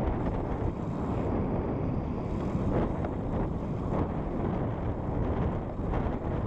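Wind rushing over a camera microphone carried on a road bicycle riding at speed: a steady, low, unbroken rumble that wavers slightly.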